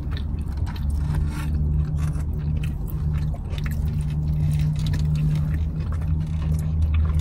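Chewing and mouth noises of someone eating a burger and fries, with short crackles and scrapes like a paper wrapper being handled, over a steady low hum.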